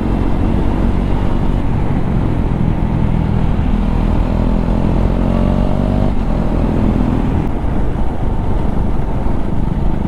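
KTM Duke 390's single-cylinder engine running under way, through an exhaust with the dB killer removed. It holds a steady pace, with the pitch rising a little partway through.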